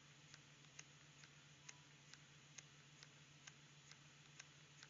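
Elmer's Engines #5 geared model steam engine running on compressed air, ticking faintly and evenly about twice a second over a steady low hum.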